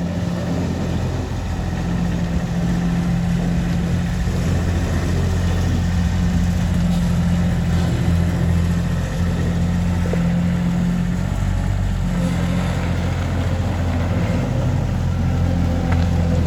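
2000 Bobcat 553 skid steer's diesel engine running steadily at a constant speed.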